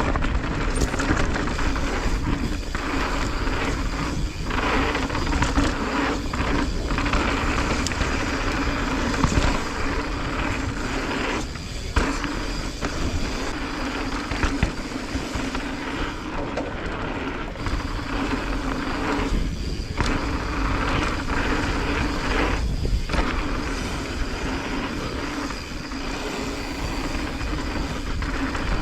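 Mountain bike riding fast down a dirt singletrack: a steady rush of tyres rolling over dirt and wind, with the bike rattling over the ground and a few brief lulls.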